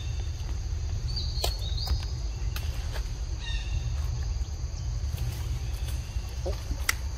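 Outdoor forest ambience: a steady low rumble of wind on the microphone, with a few short high bird chirps in the first half and scattered light ticks.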